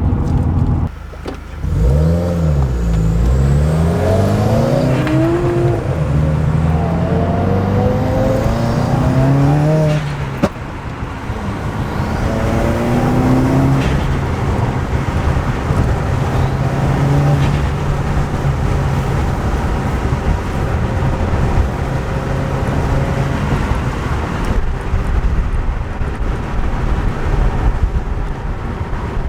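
Subaru WRX turbocharged flat-four engine pulling hard, its pitch climbing and dropping back several times as it runs up through the gears, then settling to a steadier drone.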